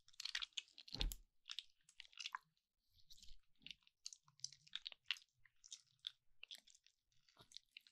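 Slime being squished and stretched: a run of small wet clicks and crackles several times a second, with one louder low thump about a second in.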